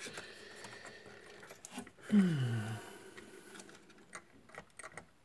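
Faint clicks and taps of hands working the plastic push-pin fasteners of an Intel boxed CPU cooler. About two seconds in there is a short groan that falls in pitch.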